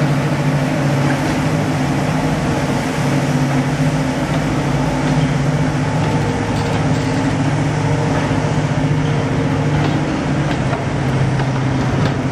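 Class 55 Deltic locomotive with twin Napier Deltic two-stroke diesel engines running under power as it hauls its train past, a steady, even engine note, with the coaches rolling by on the track.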